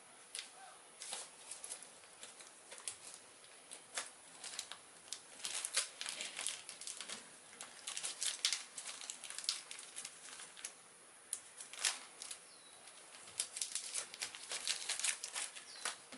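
Sheets of paper decals and small hobby tools being handled: irregular crinkling and light ticks, thickest through the middle and again near the end.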